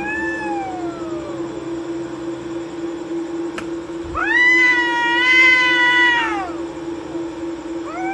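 Two cats yowling at each other in a territorial standoff. A rising-then-falling yowl comes at the start, a louder, long held yowl from about four to six and a half seconds in, and another begins at the very end.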